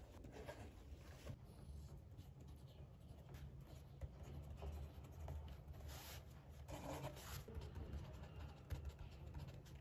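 Pen writing on paper in irregular scratchy strokes over a faint steady low hum.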